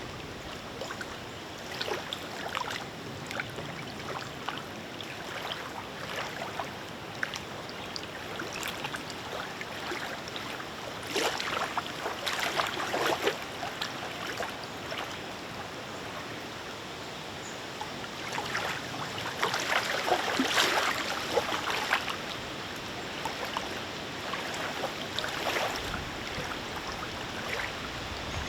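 Small wind-driven lake waves lapping and sloshing irregularly, with two louder stretches of splashing, one about a third of the way in and one about two-thirds in.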